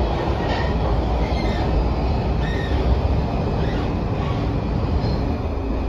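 A Washington Metro 6000-series railcar running on the track, heard from inside the car: a steady low rumble of wheels and running gear, with a few short, faint wheel squeals now and then.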